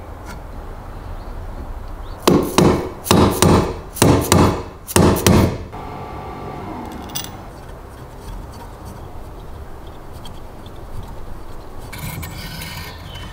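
About five loud knocks, each with a short ring, as parts of a restored heavy-duty stapler are fitted together on a wooden workbench, followed by quieter handling of metal parts. Near the end comes a brief scratchy rasp as an Allen key turns a screw in the stapler's base.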